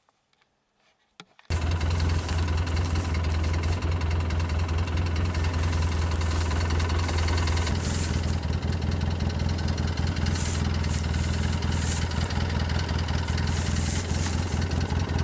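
A vehicle's engine idling steadily, coming in abruptly about a second and a half in, with an occasional brief rustle over it.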